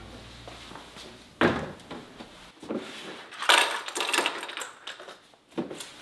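Handling noise from a white plastic storage box being turned over and worked on a wooden tabletop while caster wheels are fitted to its base: hollow knocks and taps of plastic on wood, a sharp knock about a second and a half in, a busier stretch of tapping and rubbing around three and a half to four seconds, and another knock near the end.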